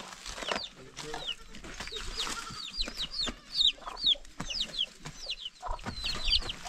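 Chicks peeping: a steady run of short, high, falling chirps, several a second, from a hen's brood of chicks.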